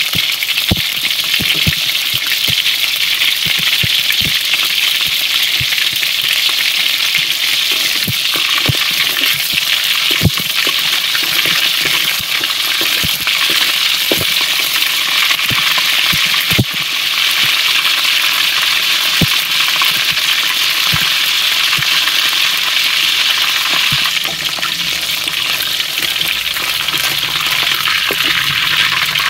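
Shrimp deep-frying in hot oil in a wok: a steady sizzling hiss with many small pops and crackles throughout.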